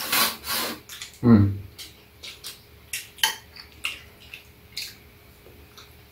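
Chopsticks and spoons clicking and clinking against bowls and a metal serving tray during a meal, in scattered light taps. A short low voice sound, like a murmur, stands out about a second and a half in.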